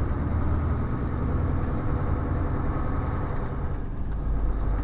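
Semi-truck's diesel engine running steadily, heard from inside the cab while the truck drives along, a deep low hum.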